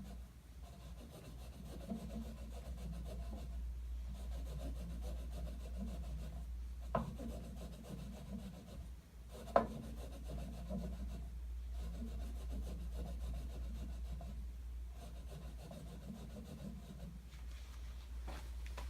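A bar of white Dialux polishing compound rubbed by hand against a stationary MDF buffing wheel in repeated strokes, charging the wheel with compound. Two sharp clicks come about seven and nine and a half seconds in, over a steady low hum.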